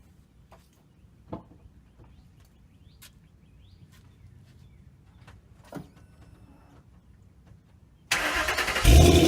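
A few faint clicks and knocks, then near the end a car engine is cranked by its starter for under a second and catches, running loud and steady right after.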